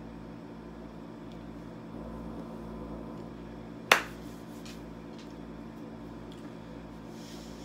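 A single sharp clap of palms striking together about four seconds in, over a steady low hum of room tone.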